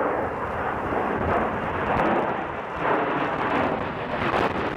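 Jet engine noise of a twin-engine jet aircraft flying overhead: a steady rushing noise that swells and eases slightly.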